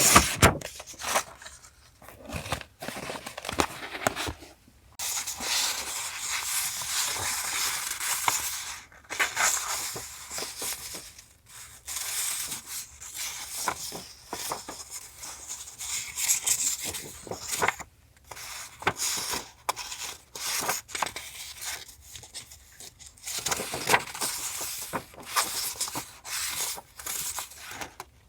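Paper being handled for a journal collage: stretches of rustling and tearing, broken by sharp clicks and short pauses.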